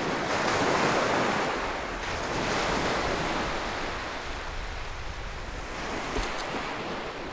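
Low waves breaking and washing up a sandy beach in a steady rushing wash. The wash swells about a second in and again a little later, then slowly dies down, with wind rumbling on the microphone underneath.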